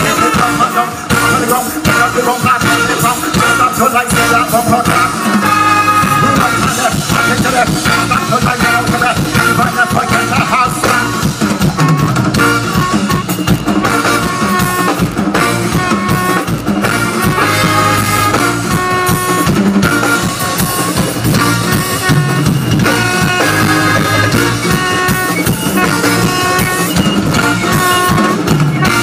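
Live soca band playing loud over the stage sound system, with a driving drum beat and keyboards.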